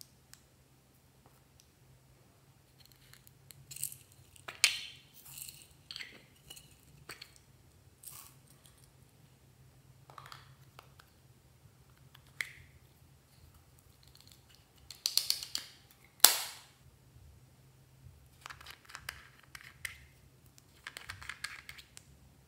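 Small plastic cosmetic containers being handled and opened by hand: scattered clicks, taps and rustles, the loudest a sharp click about two-thirds of the way through.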